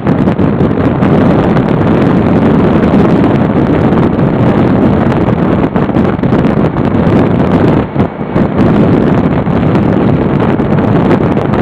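Steady wind rush buffeting the microphone of a camera on a motorcycle riding at road speed, mixed with the motorcycle's engine and tyre noise, easing briefly about eight seconds in.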